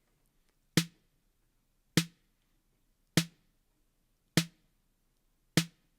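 Drum-machine snare hit playing solo five times, one every 1.2 seconds or so, each a short sharp crack with a low body, its tone being shaped by an EQ plug-in.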